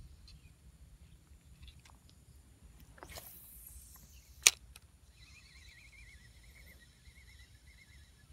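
Light spinning rod and reel being handled while working a lure: a low rumble of handling, a short whoosh about three seconds in, then one sharp click about a second and a half later. A faint wavering high tone runs through the second half.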